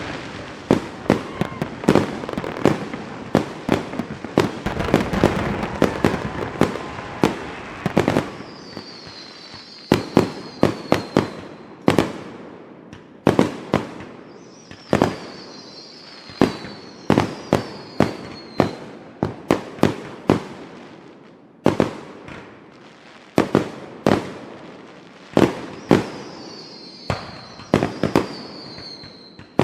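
Fireworks going off: a rapid run of sharp bangs over the first several seconds, then more scattered bangs. Several high whistles fall in pitch between them.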